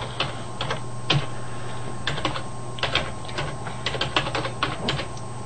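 Typing on a computer keyboard: irregular key clicks, a few in quick succession then a pause, as a line of text is typed.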